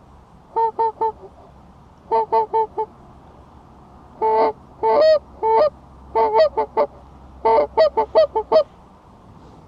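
Canada goose honks and clucks, loud and close, about twenty short calls in five quick bursts, some breaking between two notes.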